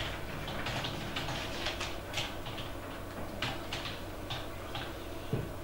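Small desk noises: light clicks, taps and rustles, scattered irregularly, from people handling pens and papers, over a low steady hum.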